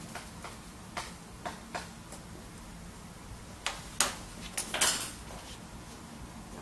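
Chalk on a chalkboard as characters are written: a series of short taps in the first two seconds, then louder strokes about four and five seconds in, the second with a brief high scrape.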